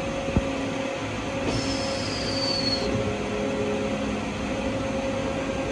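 Steady mechanical hum inside the cab of a standing Schoma maintenance locomotive. A click comes just under half a second in, and a thin high squeal falls slightly in pitch from about a second and a half to three seconds in.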